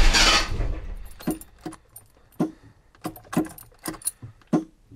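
A loud burst that fades over about a second, then a string of sharp clicks and key jangling as the ignition key of a 1975 Jaguar XJC is turned again and again. The engine does not start, a failure the owner lays on the starter relay.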